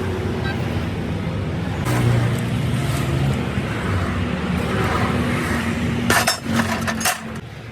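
A vehicle engine running steadily, with a few sharp metallic clinks about six to seven seconds in; the engine sound then drops away near the end.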